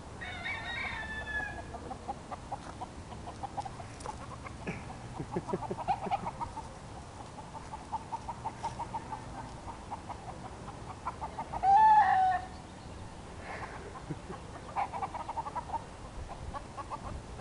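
A flock of free-roaming hens and roosters clucking, with short calls repeating throughout. One louder, brief squawk comes about twelve seconds in.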